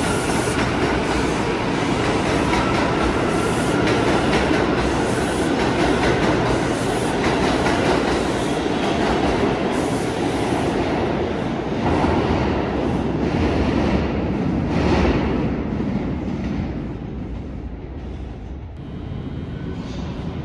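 New York City Subway train running along the track: steady wheel-and-rail rumble with clicks from the rail joints and a faint wheel squeal at the start, dying down about three-quarters of the way through.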